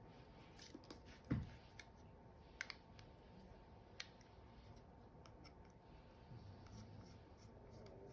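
Faint, scattered clicks and ticks of small screws and a hand tool being handled, with one dull thump about a second in.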